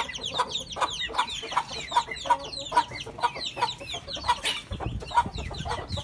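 Hens clucking in short, regular calls, about two or three a second, overlaid with a busy stream of chicks peeping.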